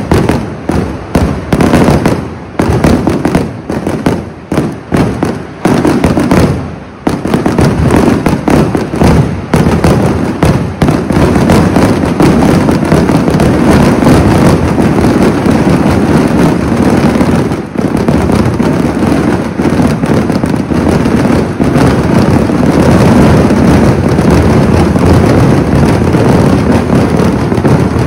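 Kerala temple-festival fireworks (vedikkettu): separate shell bursts follow each other quickly at first. From about seven seconds in they merge into a dense, continuous barrage of explosions at full loudness.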